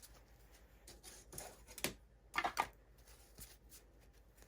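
A plastic grit divider tab and sanding sheets being handled and slotted into a 3D-printed plastic box: light rustling with a few sharp clicks, mostly around the middle.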